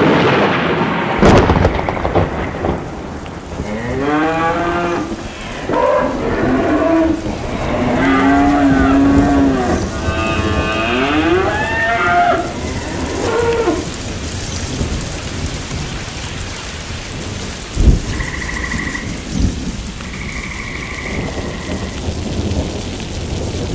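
A thunderclap, then cattle mooing several times over steady rain. The mooing stops about halfway, and the rain goes on, with another sharp crack of thunder about three quarters of the way through.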